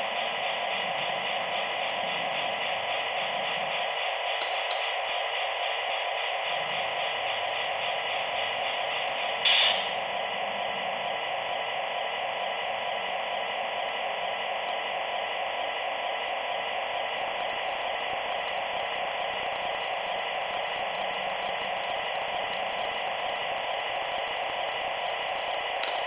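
Lenz V36 model diesel locomotive running slowly on its track: a steady hissing drone with a few fixed tones in it, and one short louder burst about nine and a half seconds in.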